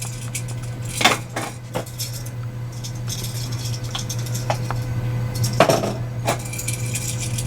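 A handful of separate light clicks and knocks from hard 3D-printed plastic parts being handled and set down: the holster and its spare dart holders. A steady low hum runs underneath.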